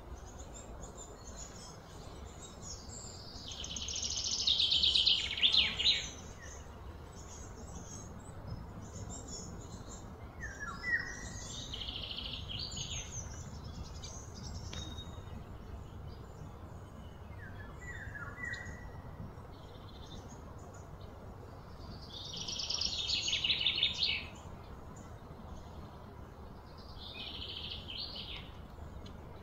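Birds calling outdoors: short falling chirps now and then, and twice a loud buzzing trill that swells for two or three seconds and then stops, once near the start and once about three-quarters of the way in.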